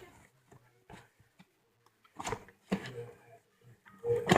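A few scattered clicks and knocks of a cardboard box being handled and worked open, with a louder knock near the end.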